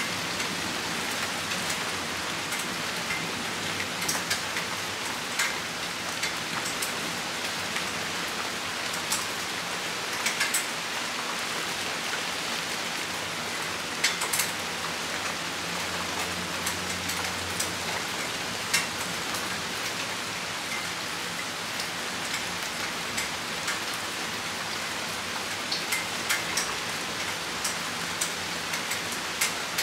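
Rain shower falling steadily, with individual drops striking a nearby surface as sharp ticks scattered throughout.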